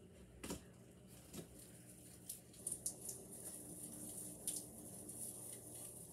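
Faint rustling of a small artificial Christmas tree's branches and ornaments being handled, with a few soft clicks scattered through.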